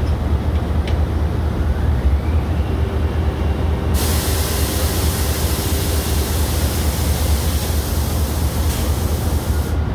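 Hyster reach stacker's diesel engine running with a deep steady rumble, with a faint rising whine and a steady hum from its hydraulics. A loud hiss starts suddenly about four seconds in and cuts off just before the end.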